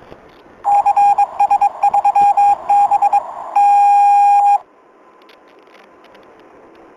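Electronic beep tone over a radio channel: a quick, irregular string of short beeps for about two and a half seconds, then one steady beep about a second long, over a faint radio hiss. In the scene it is a trooper's emergency locator code coming over the dispatch channel.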